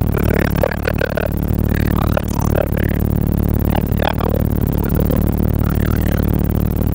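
Music playing, with short scattered pitched phrases over a steady low drone of car engine and road noise.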